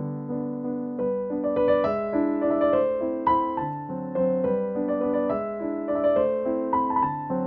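Background piano music: a melody of single notes over lower held notes, getting busier with higher notes about a second in.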